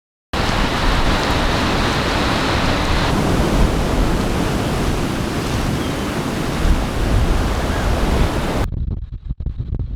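Gale-force wind blowing hard, heard as a loud, steady rush on the microphone. Near the end it changes abruptly to choppy gusts buffeting the mic.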